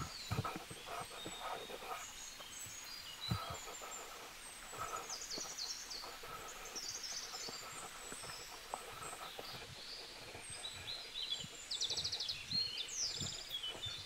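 Birds chirping, with a few quick high trills near the end, over scattered soft thumps and light rustling.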